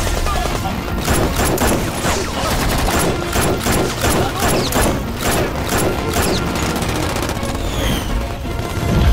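Film soundtrack of rapid automatic gunfire: volleys of many shots in quick succession, over a background music score.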